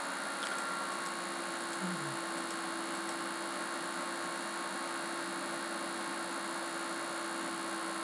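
Steady electrical hum and hiss of the recording setup: one constant low tone under an even hiss.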